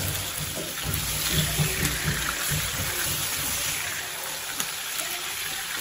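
Chicken pieces cooking in their juices in a hot pan after five minutes covered on high flame, a steady sizzle of liquid. There are uneven low bumps in the first couple of seconds.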